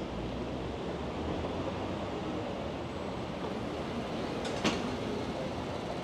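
Steady rumbling vehicle noise, with a single sharp knock about four and a half seconds in.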